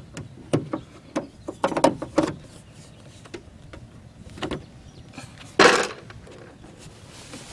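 Clicks and knocks of parts being fitted by hand into a car door during lock actuator reassembly, with a louder, half-second rasping scrape a little past halfway.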